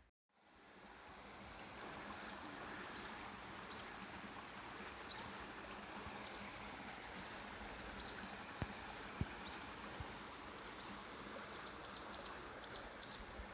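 Steady rush of flowing water from a mountain stream, with a small bird giving short, high chirps about once a second that come faster near the end. Two faint clicks sound about two-thirds of the way through.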